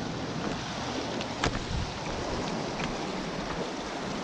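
Surf and water sloshing around jetty rocks as someone wades through it, with wind noise on the microphone. A few short sharp sounds stand out, the loudest about a second and a half in.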